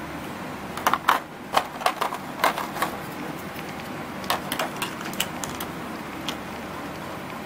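Hard plastic grooming-kit attachments (trimmer heads and comb guards) clicking and clattering against a moulded plastic tray as they are handled, in two clusters of sharp clicks.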